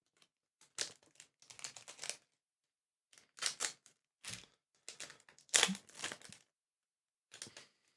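Trading cards being slid and flipped through by hand: a series of short, crisp papery rustles and snaps coming in irregular bursts, the longest about five seconds in.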